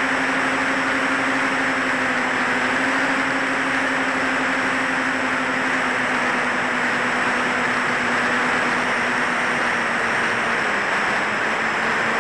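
Electric motors and propellers of a HEEWING T2 Cruza VTOL plane in forward flight, heard from its onboard camera: a steady propeller hum under loud rushing air noise, the hum dipping slightly in pitch and changing near the end.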